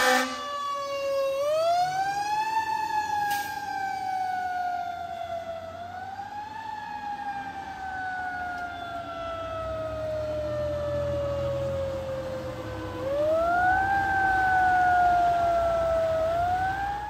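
Fire engine's mechanical Federal Q siren winding up and coasting down: it rises about a second in, falls away slowly, winds up again about six seconds in with a long slow coast-down, then winds up twice more near the end.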